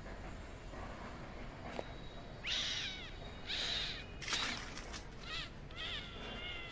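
A crow cawing repeatedly in short harsh calls about a second apart, starting a couple of seconds in.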